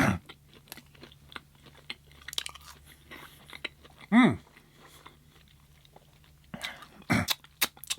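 Close-up chewing and crunching of air-fried plant-based chicken nuggets, with many short wet clicks of the mouth. About four seconds in comes a brief hum from the eater that falls in pitch.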